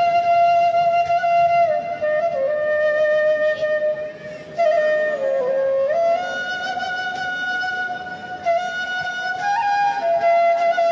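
Flute melody of slow, long held notes that slide gently from one pitch to the next, with a brief break about halfway through.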